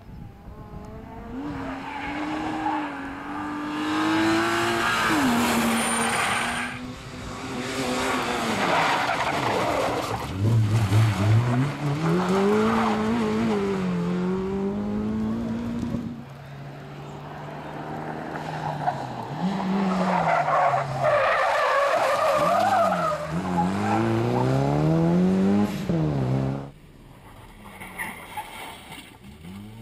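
Competition cars driven hard through a tight tyre-marked course, one after another. Their engines rev up and drop back repeatedly through gear changes and lifts, with tyre squeal in the turns.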